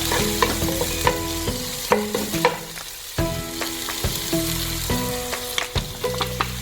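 Onion-tomato masala frying in coconut oil in a non-stick pan, sizzling, while a spatula stirs in the ground masala powder with repeated scrapes and light knocks.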